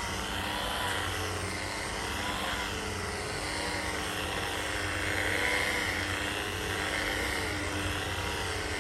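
A machine running steadily, with a low hum under a broad rushing noise and a fainter tone that wavers up and down about once a second.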